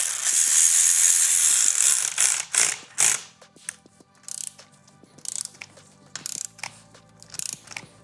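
Ratchet tightening the 6 mm bolts of a motorcycle handlebar riser clamp. It runs continuously for about two seconds, then goes in short bursts about once a second.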